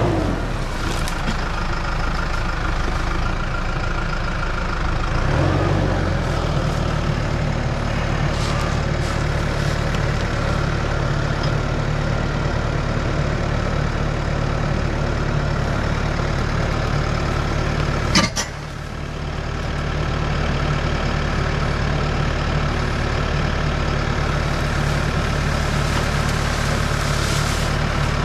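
Case IH tractor engine running steadily, its note shifting slightly about five seconds in, with one sharp knock about eighteen seconds in.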